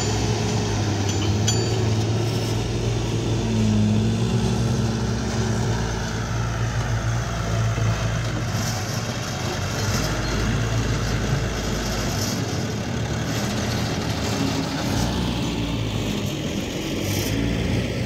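Heavy diesel engine running steadily with a low hum.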